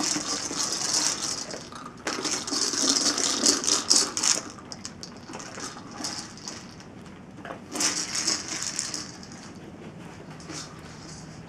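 Dry kibble rattling and clattering inside a treat ball as a dog pushes it rolling across carpet. The rattle comes in bursts, loudest in the first few seconds and again about eight seconds in, then fades out near the end.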